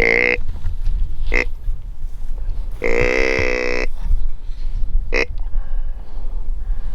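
Deer grunt call blown four times to draw in a mule deer buck: three short grunts and one longer grunt of about a second near the middle. A low wind rumble runs underneath.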